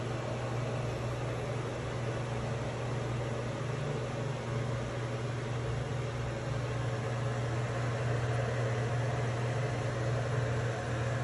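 Steady low hum over an even hiss from running aquarium equipment such as a filter or air pump, unchanging throughout.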